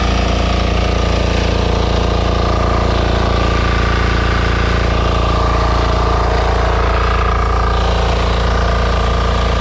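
Diesel engine of a portable high-pressure water pump running steadily at a constant speed.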